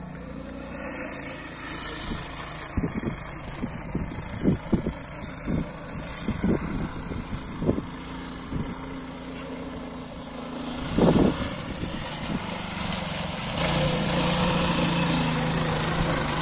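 Small engine of a homemade two-wheel-drive motorcycle running in soft sand, with irregular short bursts through the middle and a steady drone in the last few seconds.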